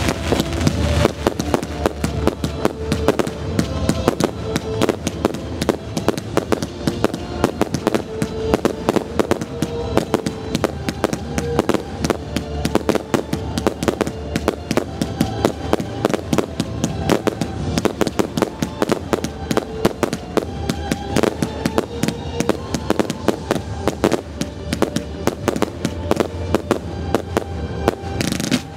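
Fireworks display: a dense, unbroken rattle of small bangs and crackling from bursting shells, with music playing underneath.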